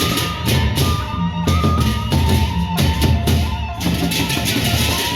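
Gendang beleq ensemble playing: big barrel drums beat steadily under frequent cymbal clashes, with a sustained high melody line stepping between pitches on top.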